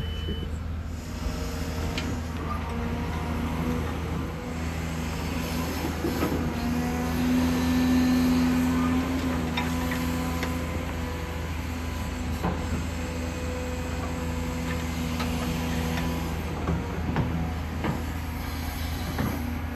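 Excavator engine running steadily, getting louder for a couple of seconds near the middle, with scattered metallic knocks and clanks.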